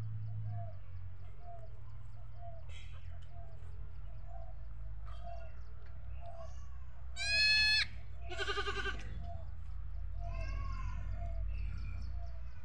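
Goats bleating: a high, thin bleat that rises in pitch about seven seconds in, followed at once by a lower bleat, then a faint third call. A steady low rumble sits under them.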